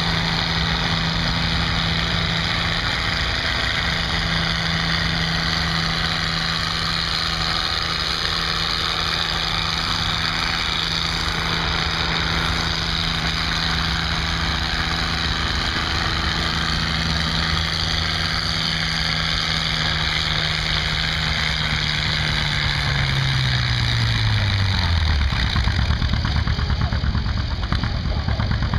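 Tractor engine under full load pulling a weight-transfer sled, running loud and steady, then bogging down in pitch about three-quarters of the way through as the sled's weight builds and the tractor slows to a stop.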